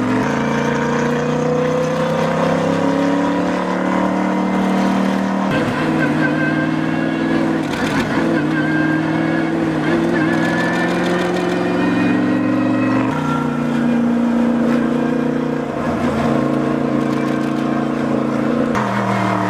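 Bentley Continental GT3 race car's twin-turbo V8 running hard on track. Its pitch climbs over the first few seconds, then jumps abruptly to a new note a few times.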